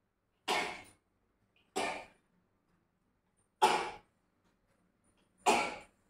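A woman sneezing four times in a row, each sneeze short and sharp, spaced about a second and a half to two seconds apart.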